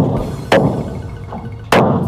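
Hammer strikes on the wooden hull planks of a ghe ngo longboat under construction: two sharp blows, about half a second in and near the end, each ringing briefly.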